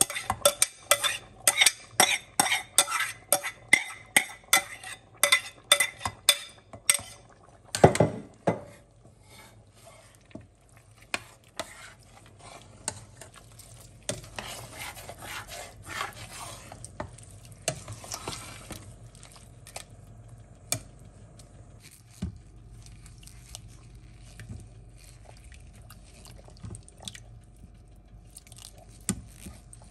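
A metal spoon rapidly clinks and scrapes against a bowl as rice is knocked out into a stainless steel pot, ending in one heavy clunk. Then comes quieter stirring in the pot, with scraping and occasional clicks of the spoon.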